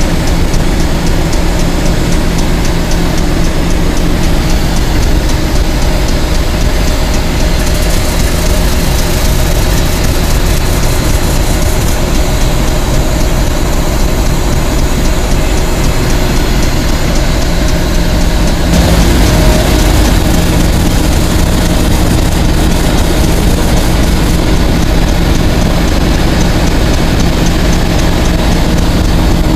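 Diesel locomotive engine idling, a steady low hum with a constant pitch.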